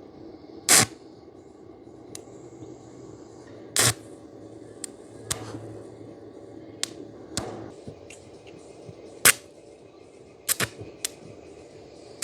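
Stick welder arc being struck again and again, about seven short sharp crackles that each die out at once: the arc will not hold, a beginner's electrode touching and breaking off. A steady hum runs underneath.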